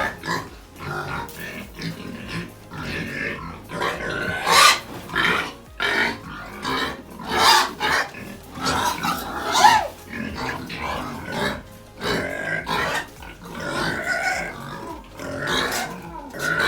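Pigs squealing in loud, repeated bursts at feeding time, clamouring for food.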